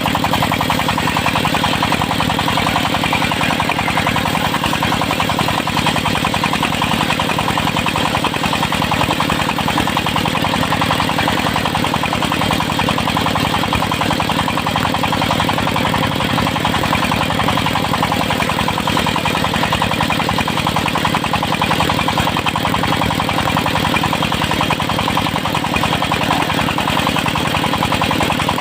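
Engine of a circular-saw sawmill running steadily at an even pitch, with no change in speed or load.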